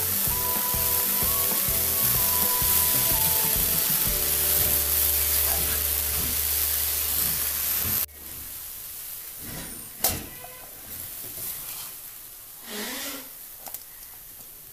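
Vegetables and greens sizzling as they fry in a pan, under background music; both cut off suddenly about eight seconds in. After that, quieter clinks and scrapes of a spoon against metal as the cooked vegetables are served into a steel bowl, with one sharp clink about ten seconds in.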